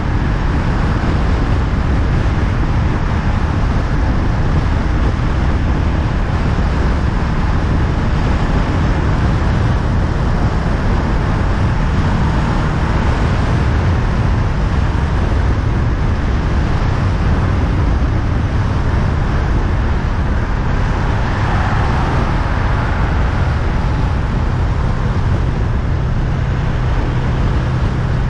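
Honda Rebel 500's parallel-twin engine running steadily at road speed under heavy wind rush on the bike-mounted camera's microphone, with a steady engine note coming through more plainly near the end.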